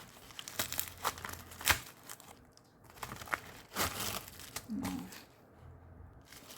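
Parcel packaging being handled and opened by hand: irregular crinkling and rustling with scattered sharp clicks and taps.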